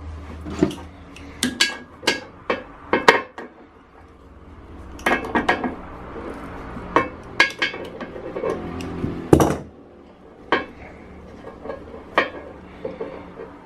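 Metal hand tools knocking and clinking against pipework and fittings, a string of sharp irregular taps, some with a short metallic ring, as a leaking plumbing fitting is worked on.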